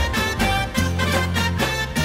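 Gujarati garba dance music, an instrumental passage: a quick, steady drum beat over a bass line and melody.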